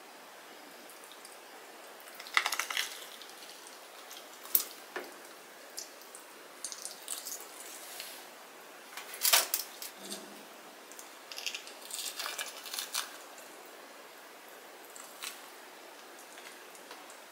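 Wet squelches and sharp little clicks of hands pulling the roe and innards out of a gutted sea bream on a wooden cutting board, in short scattered bursts.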